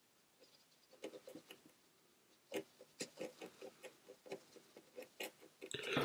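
Watercolour brush tapping and dabbing on paper in a run of small irregular ticks, then a brief scratchy scrub near the end.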